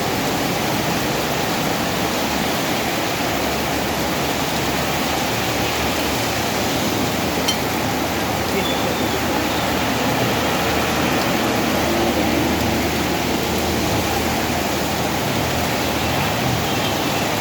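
Heavy rain falling in a steady downpour, an even hiss with no let-up. A single sharp click about seven and a half seconds in.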